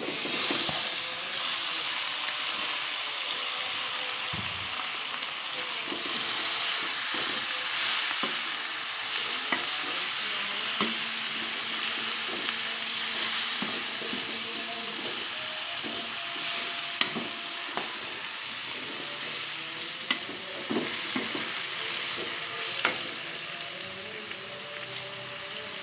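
Bok choy (sawi) sizzling loudly in hot oil in an aluminium wok, starting abruptly as the wet greens go in. The greens are stirred with a metal ladle, which clicks against the wok now and then, more often in the second half. The sizzle eases gradually.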